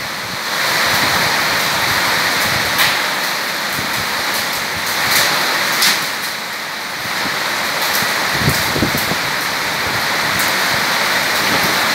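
Heavy rain pouring down onto a corrugated metal roof and a flooded yard, a loud steady hiss with a few sharp ticks, and wind gusting on the microphone near the end.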